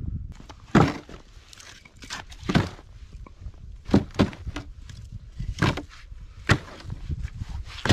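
Split firewood logs knocking together as they are tossed into a plastic sled: several separate hollow wooden clunks, about one every second or so.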